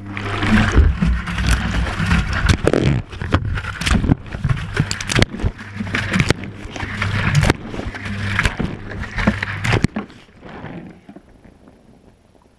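Whirlpool Indiana 1400 washing machine heard from inside its drum during a wash: the drum turns with a steady low hum while water and laundry slosh and the camera housing knocks against the drum. The hum stops about ten seconds in and the sloshing dies away.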